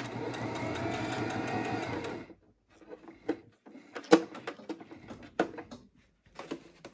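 Electric sewing machine running steadily as it stitches a seam, stopping abruptly a little over two seconds in. A few light clicks and knocks follow.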